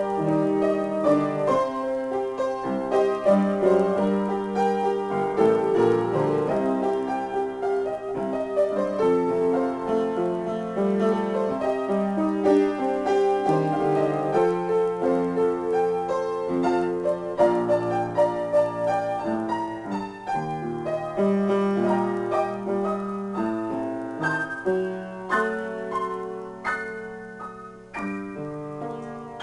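Solo piano improvisation: flowing chords and runs of notes, growing softer toward the end.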